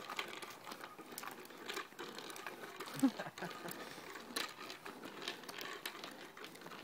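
Light, irregular clicking and rattling of a toddler's bike with training wheels rolling over asphalt, with a brief voice sound about three seconds in.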